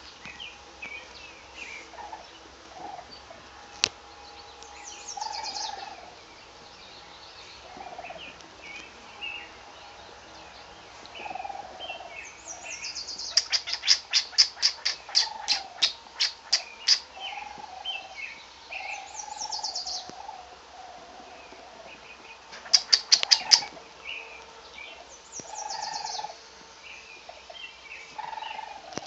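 High-pitched animal chirps and squeaks scattered throughout. About halfway through comes a fast run of sharp chirps, about three a second for several seconds, and a shorter burst of them comes later.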